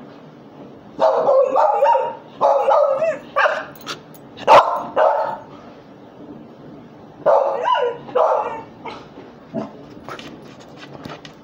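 A dog barking in several runs, about a second in, around two and a half to five seconds in, and again around seven to eight seconds in. One sharp knock about four and a half seconds in, and a few light clicks near the end.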